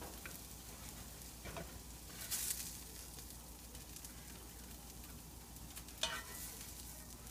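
Fried banana slices and onions sizzling faintly in a hot cast iron skillet while a spatula scoops them out onto a plate, with a few short scrapes and knocks of the spatula.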